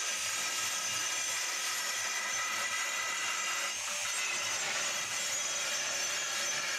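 Natural stone mortar blank (cobek) turning on a belt-driven electric lathe while a long hand-held steel bar scrapes it to shape. The steady scraping and grinding runs without a break.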